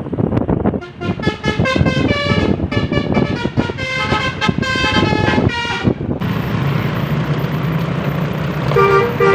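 Bus telolet 'basuri' horn playing a quick tune of changing musical notes for about five seconds, then the bus engine running steadily, with one more short horn note near the end.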